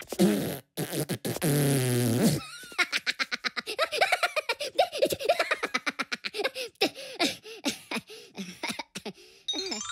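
A long cartoon fart sound effect, falling in pitch, then a Minion laughing hard in rapid, high giggles for several seconds.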